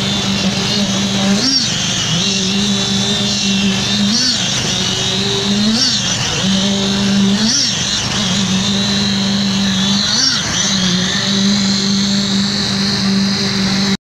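Concrete poker vibrator running in fresh concrete with a steady, high-pitched hum. The pitch briefly swings up and back down every couple of seconds as the poker is worked through the mix to consolidate it.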